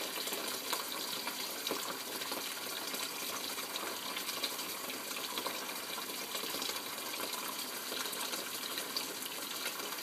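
Thin stream from an open sink faucet, about 0.9 gallons a minute, pouring steadily into a nearly full plastic bucket and splashing into the water.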